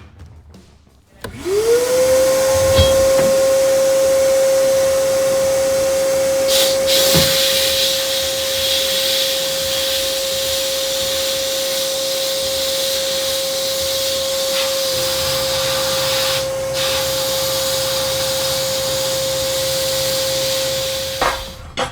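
A power tool spins up about a second in and runs at a steady high whine with a rushing hiss, stopping just before the end. It is cleaning rust and old finish off the truck's steel leaf-spring hangers and shackles.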